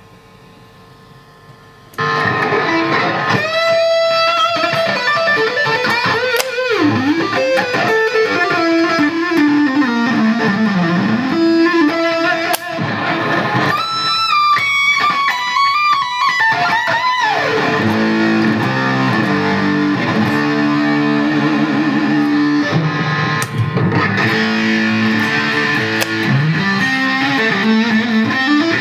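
Electric guitar played through a Vox Bulldog Distortion Cooltron tube pedal, heavily distorted. After a quiet first two seconds come lead lines with long pitch slides and dives, a fast high run about halfway through, then lower repeated riffing.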